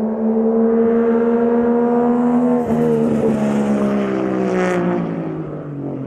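Toyota Chaser JZX100 Tourer V's turbocharged 1JZ straight-six running through a Samurai Power aftermarket muffler, pulling hard with a steady note. The note breaks sharply about two and a half seconds in, then falls steadily in pitch and fades.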